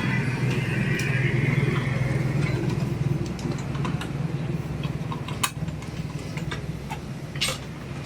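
An engine running steadily, with a few sharp clicks or knocks over it.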